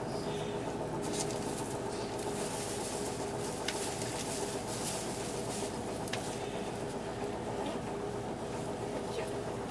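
A 2009 Hino Blue Ribbon II PDG-KV234L2 city bus's diesel engine running steadily with a constant hum, heard from inside the passenger cabin, with a couple of faint clicks.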